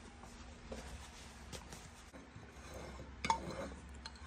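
Faint clinks and scrapes of a metal spoon against a glass baking dish while thick caramel syrup is spread, the loudest about three seconds in.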